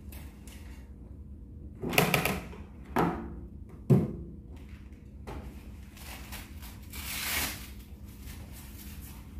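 Handling noises as a blood pressure cuff and its coiled cable are taken up and readied: three knocks about a second apart, the last with a dull thud, then a longer rustle near the end.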